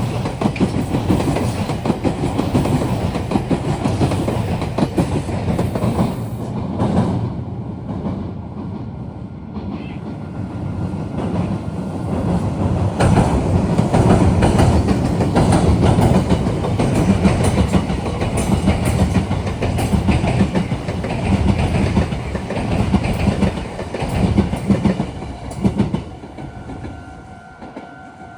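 Meitetsu electric train passing close by, its wheels clattering over rail joints at the junction in a dense rumble of clicks. The noise dips about a quarter of the way through, builds again in the middle and fades near the end, leaving the steady tones of the level-crossing warning.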